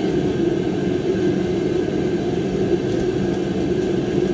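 A steady mechanical drone, an even hum that holds without change.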